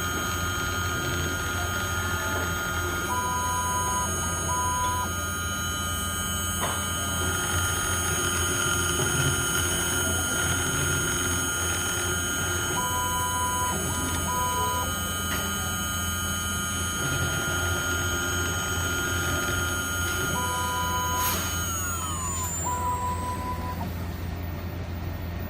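6040 CNC router running, a steady high-pitched whine of several tones over a low hum; the whine falls in pitch about three-quarters of the way through, as the spindle slows. Pairs of short beeps come back several times.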